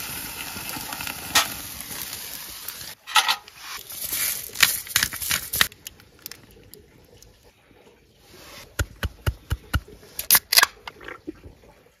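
A beef steak sizzling on a wire grate over hot charcoal, with a click about a second in. After a break about three seconds in, a quieter stretch follows with scattered light clicks and taps, a quick run of them near the end.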